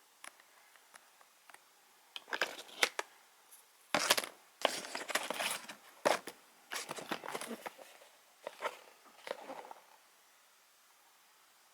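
Packaging being torn open and crinkled by hand, in irregular bursts over several seconds, after a few light clicks.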